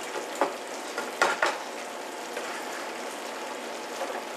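Meat sizzling in a frying pan as it is stirred, with a few short knocks of the utensil against the pan in the first second and a half.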